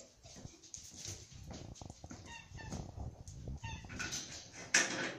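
Short, high chirping animal calls, a few in quick succession and then another short run, over quiet shuffling and knocking. A brief sharp noisy burst comes near the end.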